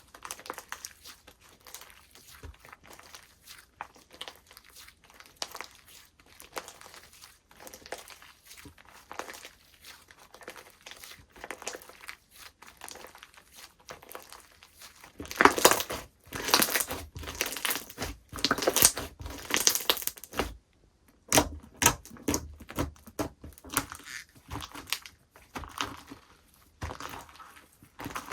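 Slime being squished and stretched by hand, giving off dense irregular crackles, clicks and sticky pops. The crackling is quieter at first and much louder from about halfway in, with a brief pause shortly after.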